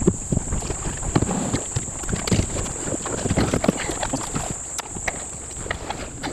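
Choppy water knocking and splashing irregularly against a kayak's hull, with wind buffeting the microphone.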